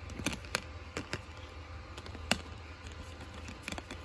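Optical disc and plastic Blu-ray case being handled: a scattering of short, sharp plastic clicks and taps as the disc is put back on the case's centre hub, the loudest about halfway in, a quick cluster near the end.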